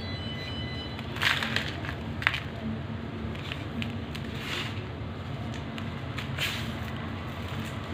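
A dry, crunchy homemade ASMR texture being crushed, giving irregular crisp crunches and crackles. The strongest cluster comes about a second in, with a sharp single crunch shortly after. Under it runs a steady low hum.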